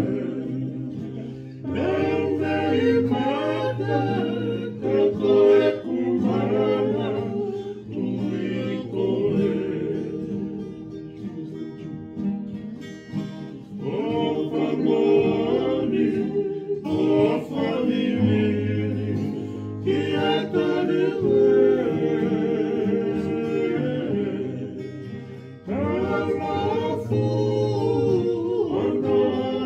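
Group of men singing together in harmony to strummed acoustic guitars and ukuleles: a Tongan kalapu (kava-club) string-band song, sung in phrases with short breaks.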